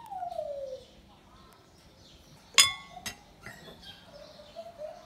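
A utensil strikes crockery with a sharp clink about halfway through, ringing briefly, followed by a lighter second clink. A falling, whistle-like call is heard near the start.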